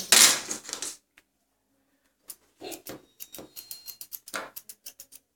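Grooming scissors snipping through a schnauzer's long leg hair in a quick, irregular run of snips starting about two seconds in.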